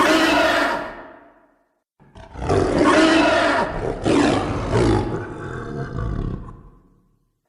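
Sinoceratops dinosaur roar sound effects: a short roar that fades away, then after a brief pause a longer roar of about five seconds that trails off.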